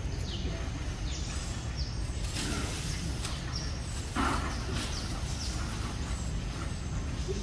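Outdoor ambience: a steady low rumble with several short, falling bird chirps. A brief rustle comes about four seconds in.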